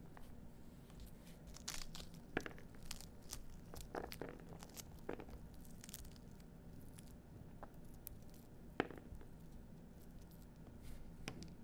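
Pomegranate husk and pith being torn and picked apart by hand, arils pulled loose: faint crinkling and tearing with scattered small clicks and snaps, the sharpest about two and nine seconds in.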